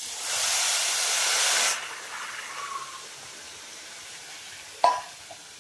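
Water poured into a hot pan of oil-roasted vermicelli and sugar: a loud hiss of steam for about two seconds, settling into a quieter steady sizzle. A single sharp clink about five seconds in.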